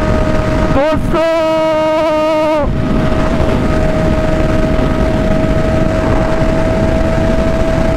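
Honda inline-four sportbike engine running at high, steady revs at speed, a steady high-pitched engine note over wind rush. About a second in, the note jumps up and turns stronger and clearer, then drops back a little before three seconds in.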